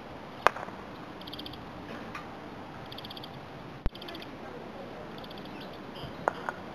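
A croquet mallet strikes a ball once with a sharp crack about half a second in. Short, high bird trills come and go in the background, and two lighter clicks follow near the end.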